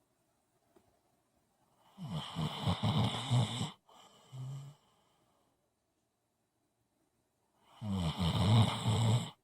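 Snoring in sleep: two loud snores of nearly two seconds each, about six seconds apart. The first is followed by a shorter, softer sound.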